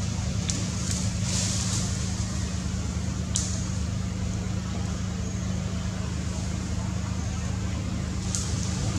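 A steady low mechanical hum, with a few short high hissy rustles: about half a second in, around a second and a half, a little past three seconds, and near the end.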